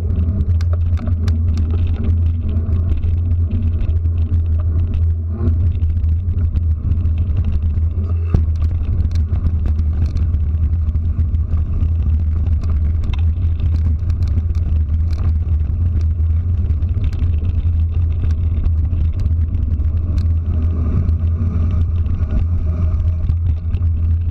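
Steady low rumble of a ride heard from a camera mounted on a moving two-wheeler: wind on the microphone and road noise, with scattered clicks and rattles.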